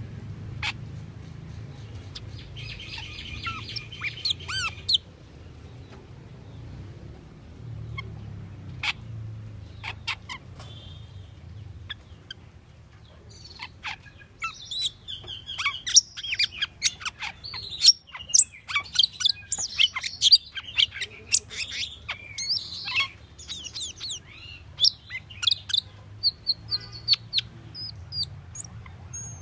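Asian glossy starling singing. A few scattered sharp whistles and a buzzy call come first. About halfway in, a fast run of high chirps, whistles and clicks begins and thins out near the end, over a steady low hum.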